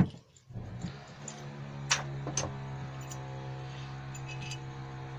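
A sharp click, then a steady low hum that starts about half a second in and holds, with a few sharp taps over it.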